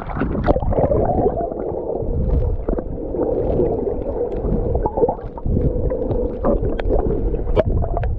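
Muffled underwater sound heard through a GoPro in its housing: water gurgling and bubbling around the camera, with scattered small clicks and pops.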